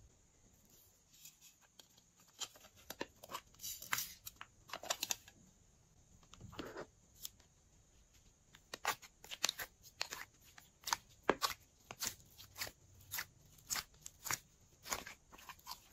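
Slime handling sounds: a run of short sharp clicks and sticky crackles as pink slime is peeled out of a plastic mold tray, coming thicker from about nine seconds in.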